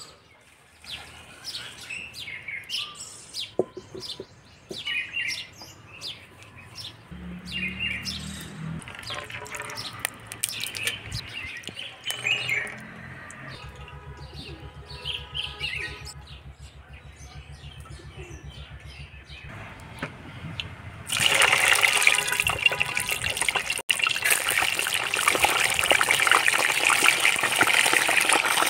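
Small birds chirping. About two-thirds of the way through, a loud, steady sizzling starts: chicken pieces deep-frying in hot oil in a pan.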